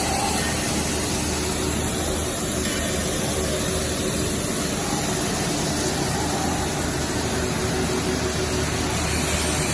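ZL100 pellet mill running steadily on test: a continuous mechanical hum with a constant tone, unchanging throughout.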